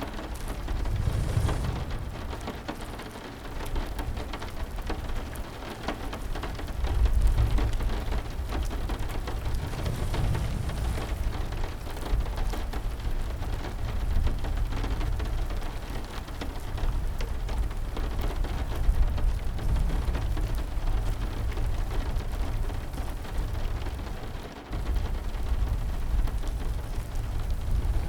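Steady heavy rain with a deep low rumble underneath that swells and fades several times, like rolling thunder.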